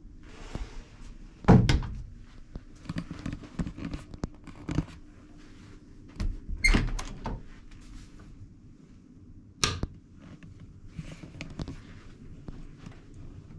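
Hotel room doors being handled: a loud thunk about a second and a half in, a door's lever latch clicking and the door knocking around seven seconds, and another sharp knock just before ten seconds, with smaller clicks between them over a faint steady hum.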